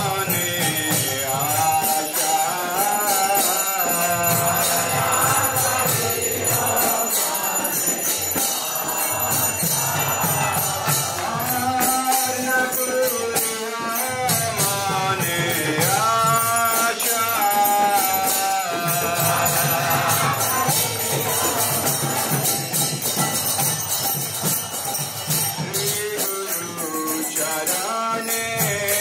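Devotional music: a voice sings a melody over continuous jingling percussion and a low drum.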